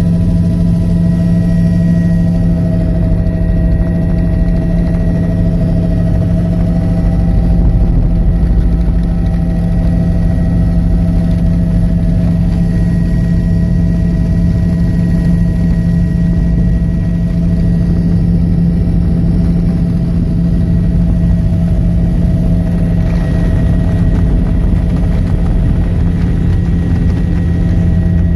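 Helicopter in flight heard from inside the cabin: a loud, steady engine and rotor drone with constant whining tones above it, unchanging throughout.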